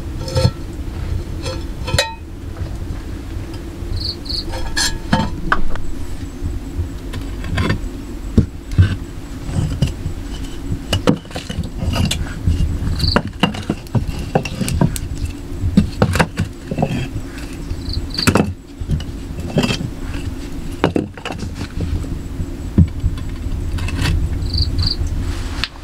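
Irregular knocks and clicks from work at close range over a steady low rumble, with short high insect chirps now and then.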